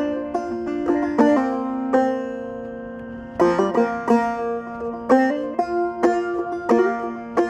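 Solo banjo picking the instrumental introduction to a folk song: quick plucked notes that ring, with a chord left to fade for about a second and a half partway through before the picking resumes.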